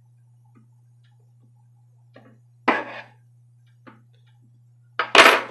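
A few scattered knocks and clatters of a bowl and utensils being handled, the loudest near the end, over a steady low electrical hum.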